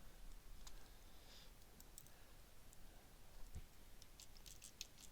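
Near silence: faint room tone with a few soft, scattered clicks, more of them near the end.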